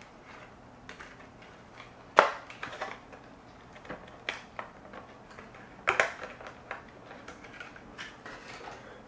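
Scattered sharp clicks and light knocks from a RAM memory module being picked up and handled, the loudest clicks about two seconds and six seconds in.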